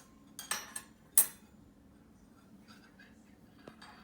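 Metal spoons clinking as a child sets them down one by one: a few light clicks, one sharp clink a little over a second in, and faint taps later.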